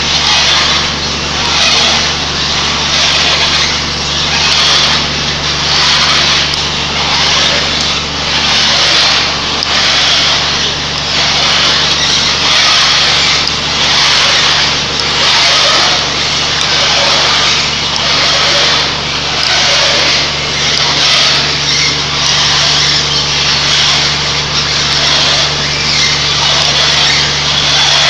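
Soybean extruder running: a steady low motor hum under a loud rushing noise that swells and fades about every second and a half.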